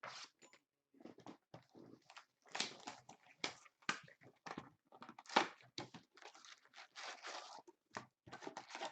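Plastic wrapping on a retail box of basketball trading cards being torn open and crinkled: a run of short, irregular crackles and rustles.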